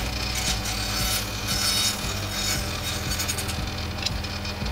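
Repeated scraping strokes of hand tool work, over background music with a steady low bass.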